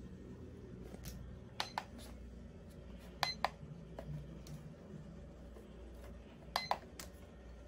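Buttons on an ATIVAFIT exercise bike's console being pressed: three pairs of short, sharp clicks with a slight ring, over a low steady hum.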